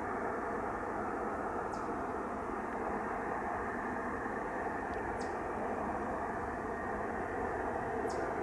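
Steady jet-engine noise from an airliner taxiing at the airport, an even rumble with a faint steady whine through it. Three brief high chirps fall in pitch over it, about two, five and eight seconds in.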